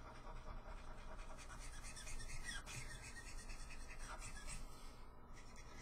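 Copic alcohol marker stroked back and forth over ink-saturated paper, making faint scratchy rubbing strokes: the funny noises these markers make while colouring and blending.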